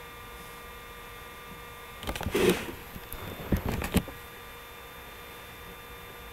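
Steady electrical hum with faint high steady tones in it. About two seconds in comes a brief rustle, then a few sharp computer-mouse clicks between about three and a half and four seconds in.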